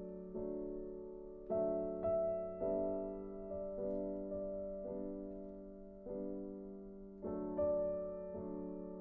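Soft background piano music: slow chords struck about once a second, each note ringing and fading.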